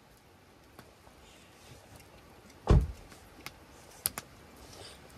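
Wood campfire crackling, with a few sharp pops scattered through. About two and a half seconds in there is one dull, deep thump, the loudest sound.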